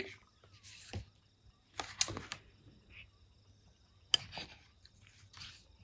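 A picture book's page being turned and the book handled: a few short, soft paper rustles and taps, with one sharper tap a little after four seconds in.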